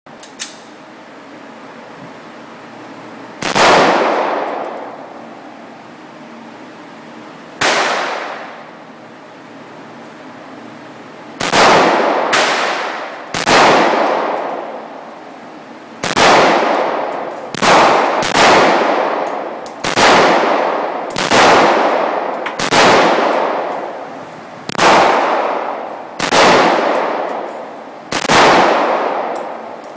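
AR-15 rifle fired semi-automatically, about fourteen single shots at an uneven pace, from about four seconds apart early on to under a second apart in the middle. Each shot rings and echoes for about a second in an indoor range.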